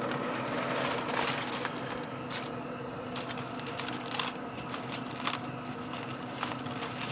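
Aluminium foil and a disposable foil pan crinkling and scraping as the covered pan is dragged off a pellet grill's metal grate, with irregular sharp crackles and clicks. Underneath is a steady hum from the running pellet grill's fan.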